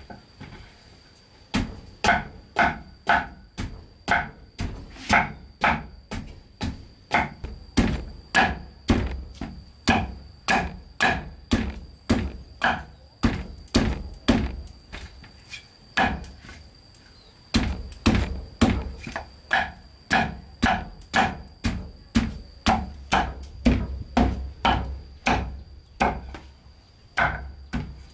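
Cleaver chopping down through a dark red root onto a wooden chopping board in a steady rhythm of about two chops a second, with a short pause a little past halfway.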